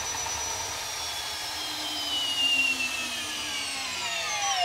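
Milwaukee M18 2804 hammer drill in low gear, running against a dyno brake. Its motor whine falls steadily in pitch as the brake drags the speed down toward a stall.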